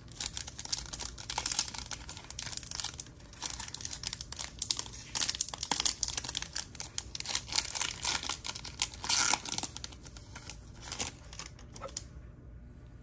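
A 2021 Panini Select baseball foil pack being torn open and its wrapper crinkled in the hands: a dense run of rustling and crackling that stops about a second before the end.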